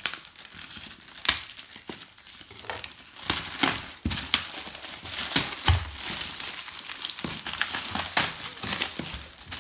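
Black plastic bin-bag wrapping crinkling and tearing as it is pulled open by hand, with irregular sharp crackles.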